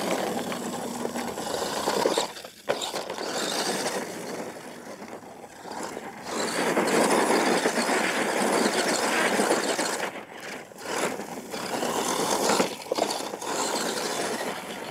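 R/C monster truck driving hard on a loose dirt course: a rough whirring of its drivetrain with the tyres churning and spraying dirt. It is loudest for a few seconds in the middle, while it throws up dust, and dips briefly twice.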